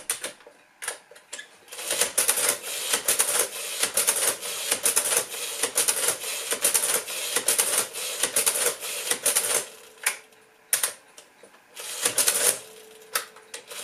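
A 1971 Olivetti Prima 20 mechanical adding machine being operated: keys tapped, then the hand crank pulled again and again, with the printer and accumulator racks clattering in rapid mechanical clicks. The clatter runs for several seconds, pauses briefly, and starts again near the end.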